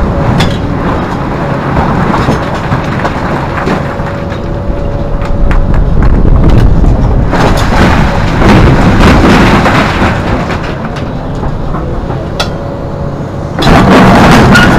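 Hidromek 390 excavator's six-cylinder Isuzu diesel working under load, with its steel bucket scraping and knocking through broken rock. Midway a bucketload of rock pours into a dump truck's steel bed, and near the end the bucket bites back into the rock pile with a sudden loud crunch.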